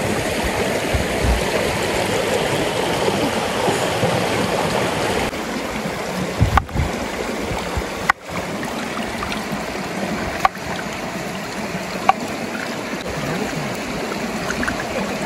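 Flowing river water rushing and gurgling close to the microphone, a steady noisy wash with a few brief knocks. Its character changes abruptly about five seconds in.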